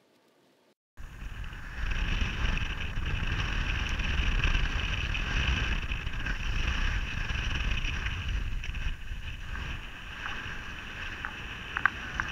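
Wind buffeting an action camera's microphone, with water rushing past a wingfoil board; it starts abruptly about a second in after near silence. A short click near the end.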